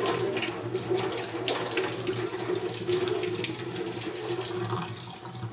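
Tap water running into a sink as bilimbi fruits are washed under it, with a few small splashes; the flow eases off near the end.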